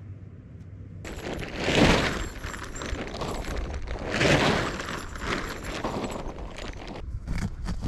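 Nylon tent fabric rustling and crackling as it is pulled out and shaken open, with two louder swells of flapping about two and a half seconds apart.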